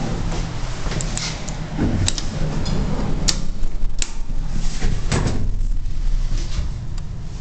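Inside an old Otis traction elevator car: a steady low hum with a few sharp clicks and clunks, one of them the floor button being pressed about four seconds in.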